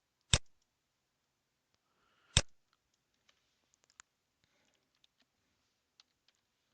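Two loud, sharp computer mouse clicks about two seconds apart, then a few faint scattered clicks.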